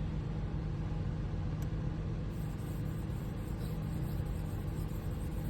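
Steady hum of a running electric motor, with one low tone held level throughout.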